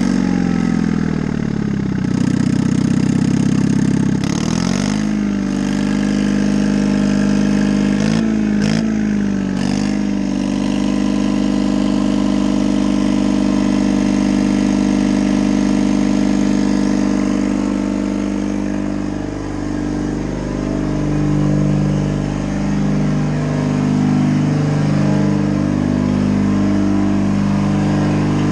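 Detroit Diesel 2-71, a two-cylinder two-stroke supercharged diesel, running and being worked on its throttle. The revs sag over the first few seconds, climb sharply about four seconds in and swing up and down again around eight to ten seconds, then it settles to a steady run. Later the sound wavers unevenly. A salvaged #1 injector is fitted in place of a smoky, missing one.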